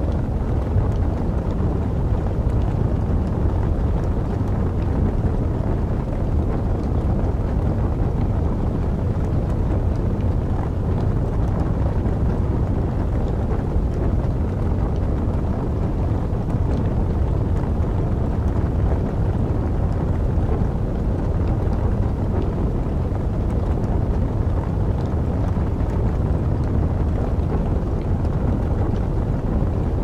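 Steady low rushing rumble of winter wind, unchanging throughout, with faint scattered crackles from burning wood logs.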